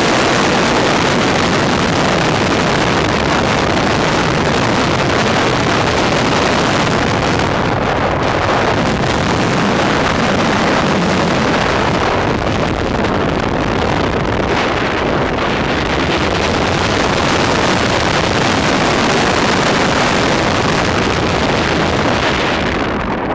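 A car driven at speed on a time-trial course, heard mostly as loud, steady wind rush on the microphone mixed with engine and tyre noise. The noise begins to fall away at the very end as the car slows.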